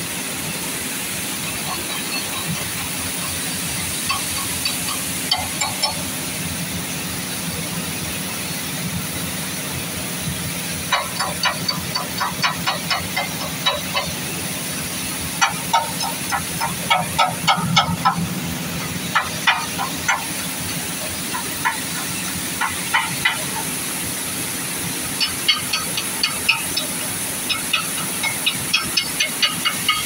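Flour mill machinery running steadily, a constant hum with a high hiss, joined by several short bursts of rapid ticking in the middle and near the end.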